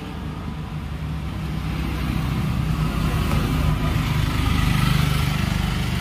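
A motor vehicle's engine running with a steady low rumble, slowly growing louder over the first five seconds.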